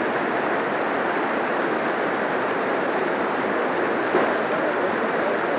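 Shallow mountain river rushing steadily over rocks and boulders: a constant, even rush of white water.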